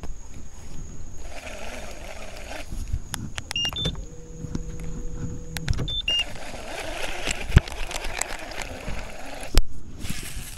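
Electric trolling motor running in a short burst of about two seconds, a steady hum, with short electronic beeps just before it starts and just after it stops. Scattered clicks and knocks of gear handled in the boat come before and after.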